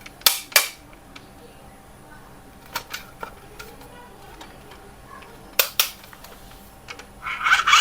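Several sharp plastic clicks with quiet between: a pair early on, a small cluster about three seconds in, and another pair near six seconds. They come from handling a toy RC construction vehicle.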